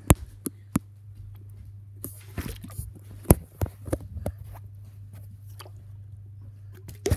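A clear plastic water bottle being handled and flipped onto a sofa: scattered light knocks and crinkles with a few sharp clicks, the sharpest about three seconds in and a pair near the end, over a steady low hum.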